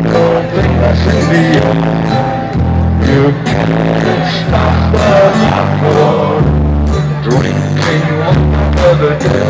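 Loud hard dance music over a concert PA: a pounding beat and synth lines, with a heavy bass note swelling about every one and a half to two seconds. The recording is rough and distorted.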